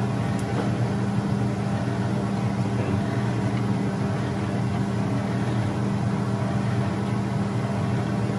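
Steady low hum of a kitchen vent fan running.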